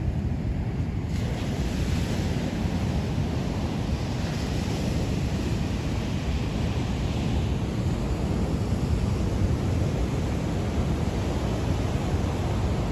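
Ocean surf breaking and washing up a sandy beach, with wind buffeting the microphone in a steady low rumble.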